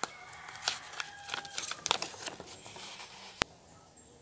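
Paper rustling and crinkling as a folded owner's manual booklet is handled and opened, with many small crackles and one sharp click about three and a half seconds in.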